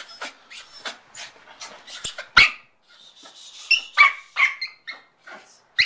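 Miniature pinscher puppy giving a run of short, high yips and barks, the loudest about two and a half seconds in, then several in quick succession about a second later.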